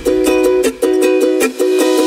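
Background music: pitched notes in short repeating phrases, with a brief dip about every three quarters of a second.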